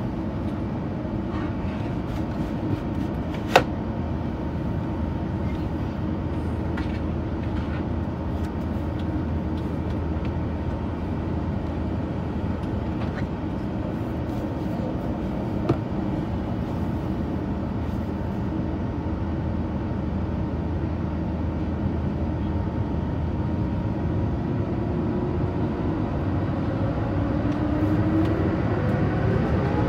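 Rolls-Royce Trent XWB turbofans of an Airbus A350-900 heard from inside the cabin while taxiing: a steady rumble with a faint whine. Near the end the engines start to spool up for the takeoff roll, a rising whine as the sound grows louder. Two sharp clicks, about three and a half seconds in and again around sixteen seconds.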